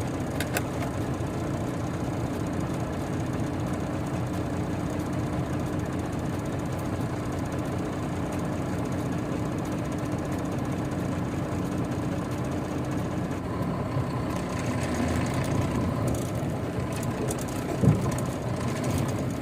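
Heavy diesel engine idling steadily, its low hum changing pitch a little past the halfway point, with a single thump near the end.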